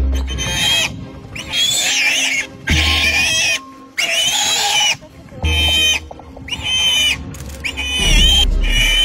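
Warthog squealing in distress while a leopard holds it by the head and neck: about eight shrill squeals in quick succession, each under a second long. Background music runs underneath.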